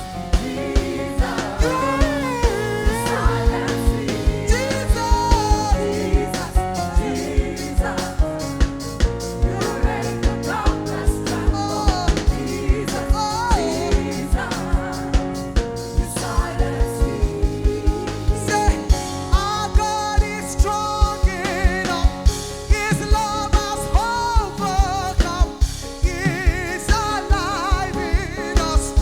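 Live gospel worship music: a singer's voice gliding over a band's held chords, with a steady drum-kit beat.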